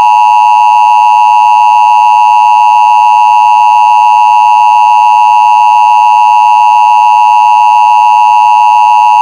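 Emergency Alert System two-tone attention signal: a loud, steady, unwavering electronic tone, the alert that comes before an emergency broadcast message.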